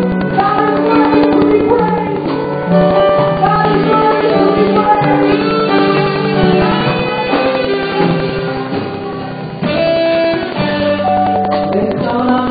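Live gospel praise-and-worship music: a woman singing lead into a microphone, with guitar and a band accompanying.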